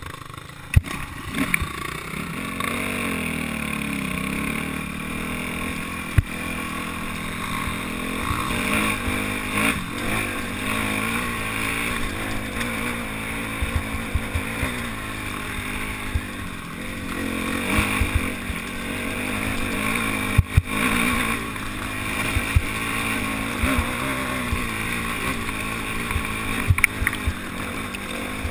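Dirt bike engine running close to the microphone while riding a rocky trail, its pitch rising and falling with the throttle. Sharp knocks and rattles sound here and there as the bike goes over stones.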